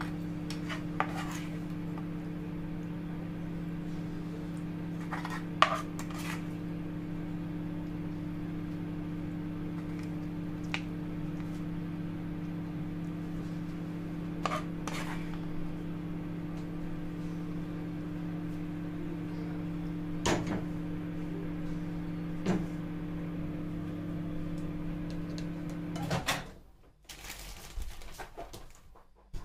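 Plastic spatula scraping and tapping against a cast-iron skillet and a plate as fried salmon and sauce are served, a few scattered knocks over a steady low hum. The hum stops near the end, followed by a short run of clatter as food is set on the plate.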